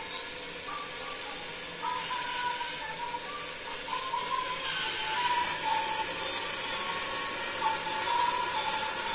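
Small motor of an electronic piggy bank whirring steadily as it draws a banknote in through its slot, while the bank plays a simple electronic tune of short beeping notes.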